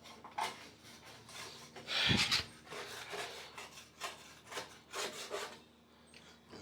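Repeated scraping and rubbing strokes of hands working on washing-machine parts, with a louder scrape and a low thud about two seconds in.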